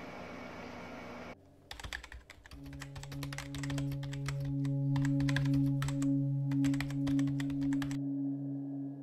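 Keyboard typing sound effect: a quick run of clicks as text types out, over a low, steady ambient music drone that comes in about two seconds in. The clicks stop near the end while the drone holds.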